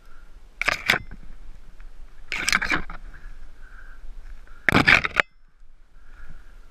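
Three short, loud scraping noises, about two seconds apart.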